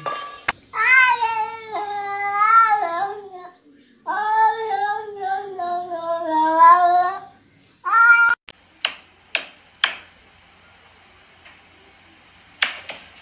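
A cat meowing: two long, drawn-out meows of about three seconds each with a wavering pitch, then one short meow. After that come three sharp taps about half a second apart, and more taps near the end.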